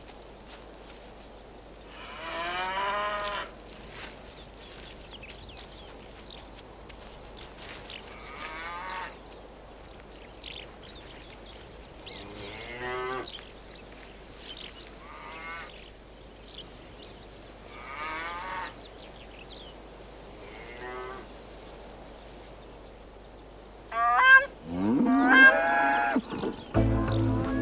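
Cattle mooing several times, each call a second or so long and a few seconds apart. Near the end, louder honking calls from grey crowned cranes, then music comes in.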